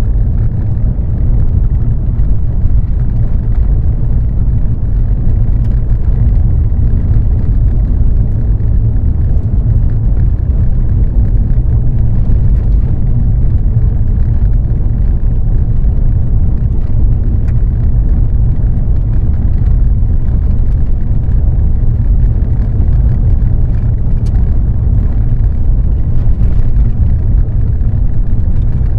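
Steady low rumble of a car driving on a wet road in heavy rain, heard from inside the cabin, with a hiss of rain over it.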